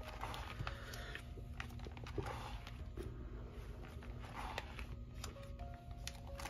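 Plastic pocket-sleeve pages of a photo card binder rustling and crinkling as they are turned, with light scattered clicks and taps, over a faint steady hum.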